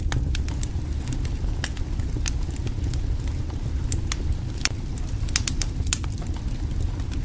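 Wood fire crackling under a cooking pot: irregular sharp pops and snaps over a steady low rumble.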